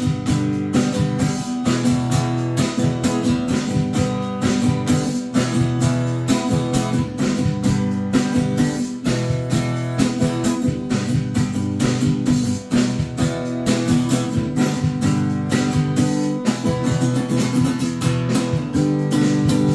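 Acoustic guitar strummed rapidly and steadily, an instrumental passage of a song with no singing.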